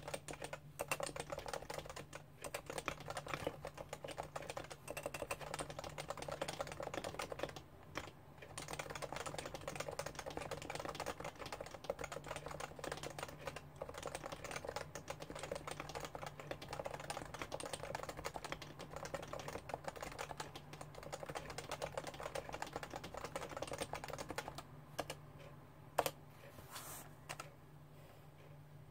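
Steady fast typing on a Realforce R2 keyboard with Topre electrostatic capacitive switches, dense keystrokes with a couple of brief pauses. Near the end the typing thins to a few scattered keystrokes, one of them louder. A faint steady low hum runs underneath.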